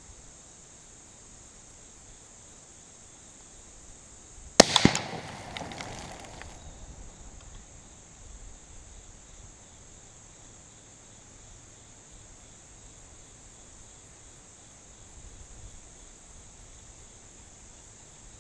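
A single rifle shot from a .243 rifle, its echo rolling away over about two seconds. Insects chirr steadily in the background.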